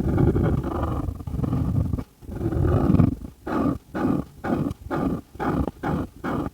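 Felt-tip marker rubbing on paper close to the microphone: a few longer strokes at first, then quick back-and-forth colouring strokes, about two to three a second.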